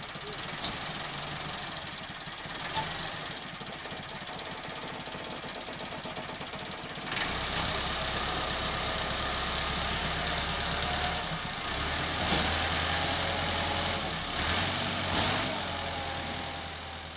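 Massey Ferguson 385 tractor's diesel engine running steadily as the trolley is tipped. About seven seconds in it gets louder and deeper, with a couple of sharp knocks later on.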